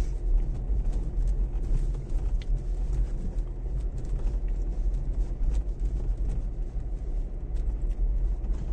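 Dacia Duster 4x4 driving along a dirt track, heard from inside the cabin: a steady low rumble of engine and tyres, with scattered small clicks and knocks.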